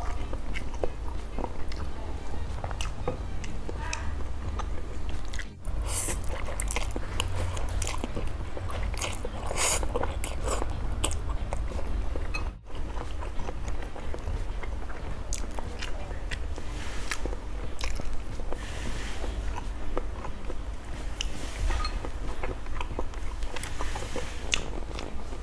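Close-up chewing and slurping of spicy stir-fried instant noodles, with wet mouth clicks and bites, broken by two brief gaps.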